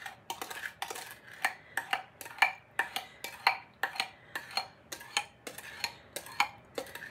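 A spoon knocking and scraping against a mixing bowl in quick repeated strokes, about three a second, as the dry flour mixture is stirred into sugar-cookie dough.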